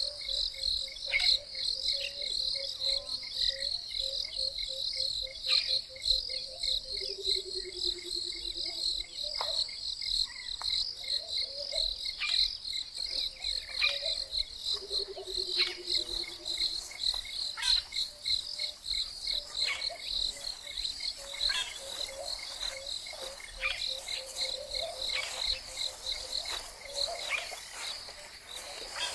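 Bushveld dawn chorus: a steady, high-pitched, fast-pulsing insect chirring with bird calls over it from fork-tailed drongo, Burchell's coucal, emerald-spotted wood dove, brown-crowned tchagra and laughing dove. Twice a low call falls slowly in pitch over about two seconds.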